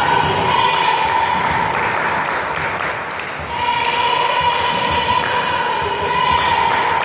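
Steady rhythmic hand clapping, about three claps a second, under drawn-out chanting voices from a volleyball crowd or bench.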